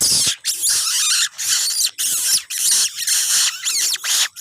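Young fantail chicks (sikatan kipas) giving harsh, squealing calls close by, one after another at about two a second.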